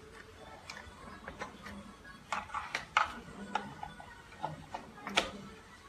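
Faint, scattered clicks and knocks of a plug and power cord being handled at a plastic power strip, a few seconds apart, the sharpest about three seconds in and another just after five seconds.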